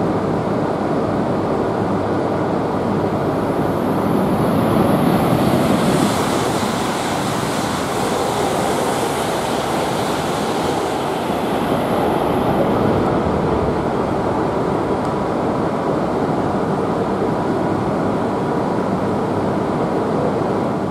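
Shinkansen train moving along the station platform: a steady rushing rumble that swells from about four to twelve seconds in, with a high hiss on top.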